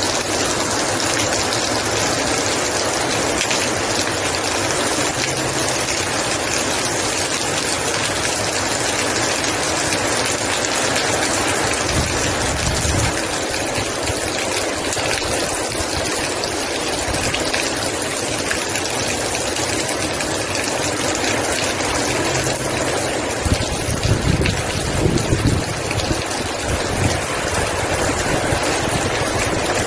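Heavy rain pouring down in a steady, loud hiss. Low rumbling thumps come through twice, briefly about twelve seconds in and more strongly a few seconds before the end.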